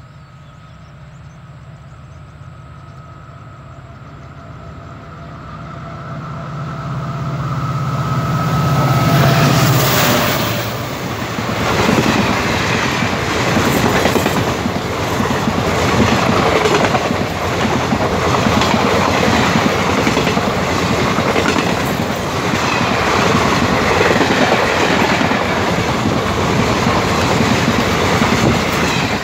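A WDP4D diesel locomotive (EMD two-stroke V16) approaches, its engine hum growing steadily louder and dipping in pitch as it passes about ten seconds in. Then the coaches of a long passenger train roll by at speed, with a loud steady rumble and a rhythmic clickety-clack of wheels over the rail joints.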